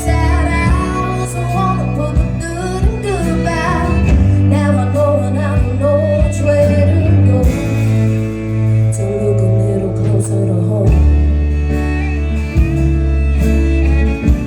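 Live country band playing an instrumental break between sung lines, with guitar leading over a steady bass line.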